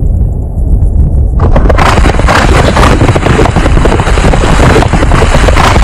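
A horse galloping: rapid, dense hoofbeats that start about a second and a half in, over a low rumble.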